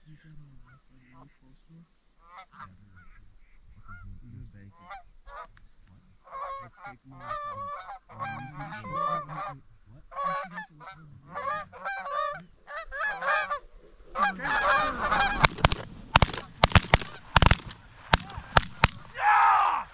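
A flock of geese honking, the calls growing denser and louder as the birds come in. About fourteen seconds in, a rapid volley of shotgun blasts rings out among the honking.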